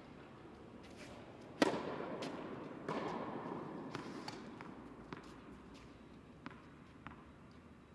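Tennis racket striking a ball with a sharp crack that rings out in a large echoing indoor tennis hall. A second, softer thud follows about a second later, then a few faint ball bounces.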